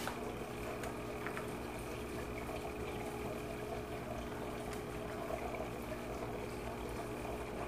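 Steady hum of aquarium equipment, with bubbling from the air stones in the tank.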